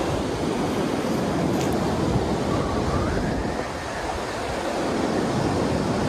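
Pacific Ocean surf breaking on the beach: a steady rush of noise that eases slightly about three and a half seconds in.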